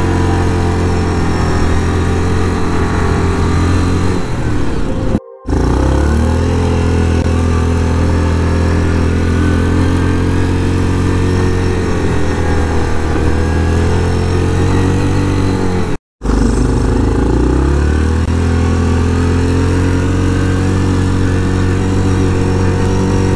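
Yamaha Grizzly 700 quad's single-cylinder engine running under way at a fairly steady speed, its pitch dipping and rising a little. The sound cuts out suddenly twice, briefly, about five and sixteen seconds in.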